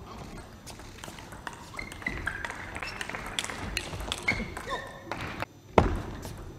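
Table tennis rally: the celluloid-type ball clicks back and forth off rubber-faced rackets and the table top in quick, irregular strikes. Near the end there is one sudden loud thud-like sound.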